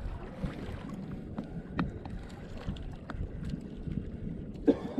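Strong sea current washing and lapping against the hull and bamboo outrigger of a small outrigger fishing canoe, a steady wash with some wind on the microphone.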